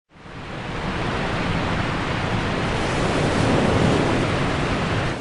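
A steady rushing noise with no distinct tones, fading in over the first second and then holding level.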